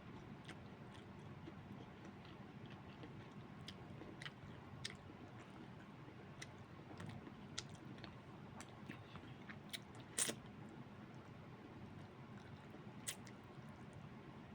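A person chewing a mouthful of pork, cabbage and rice close to the microphone: faint, scattered mouth clicks and small crunches, with a louder one about ten seconds in and another near the end.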